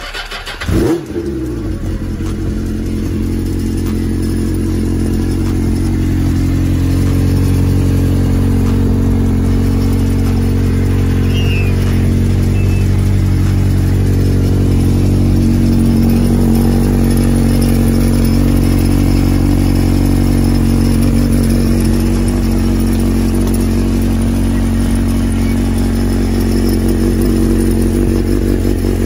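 Suzuki 600 sport bike's inline-four engine starting from cold: it catches about a second in with a quick rise in pitch, then settles into a steady idle through an aftermarket slip-on silencer.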